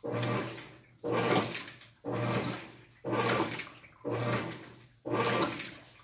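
GE belt-drive top-load washing machine agitating: water sloshes with each agitator stroke, about one stroke a second, each starting sharply and fading away.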